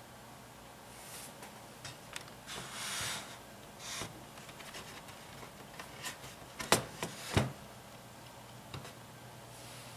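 Scattered small clicks and rustles, with a longer rustle about three seconds in and two sharper clicks around seven seconds, over a steady low hum.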